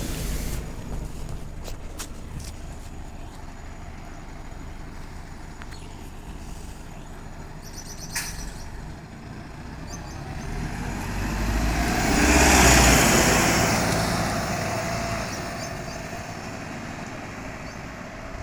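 Road vehicle noise: a vehicle passes, its sound swelling to a peak about two-thirds of the way through and then fading away, with a few short clicks earlier on.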